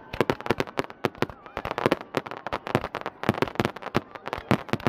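Fireworks finale: a rapid, dense barrage of sharp bangs and crackles, several reports a second, overlapping without a pause.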